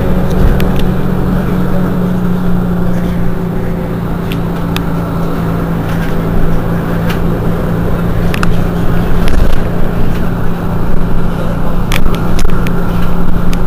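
Mercedes-Benz Citaro G C2 articulated bus idling steadily while stationary, a constant low engine hum, with occasional sharp clicks.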